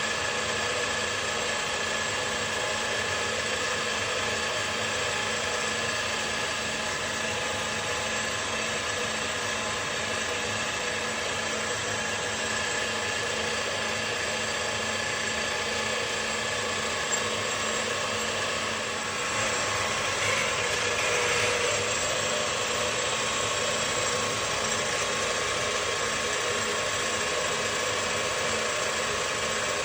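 A metalworking machine tool running steadily, its motor and gearing giving several steady whining tones over a mechanical hum, with an even low pulsing. It grows a little louder about twenty seconds in.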